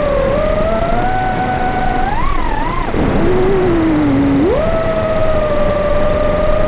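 FPV quadcopter's brushless motors and propellers whining in flight, the pitch following the throttle. The whine holds steady, wavers, then drops low about three seconds in and jumps back up about a second and a half later, over a steady rushing hiss.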